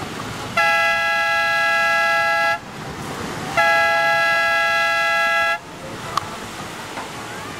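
Air horn blown twice, two long steady blasts about a second apart, each a two-note tone: the heat signal at a surf contest. Surf washes low underneath.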